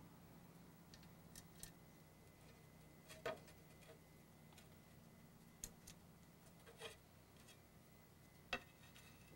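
Near silence broken by a handful of short clicks and light knocks, the loudest about three seconds in and near the end: a Martindale No. 204 machete being handled and turned over on a wooden workbench.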